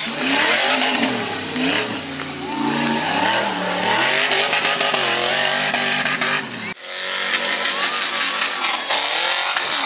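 Off-road trucks' engines revving hard, the pitch rising and falling with the throttle. About two-thirds of the way through, the sound cuts abruptly to another truck revving.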